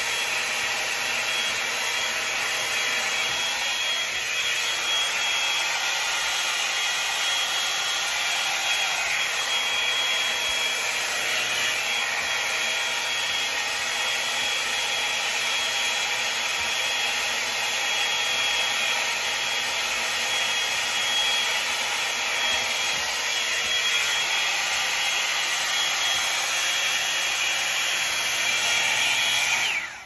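Revlon One-Step hair dryer brush running steadily: a constant rush of blown air with a thin, steady high whine from its motor, cutting off at the very end.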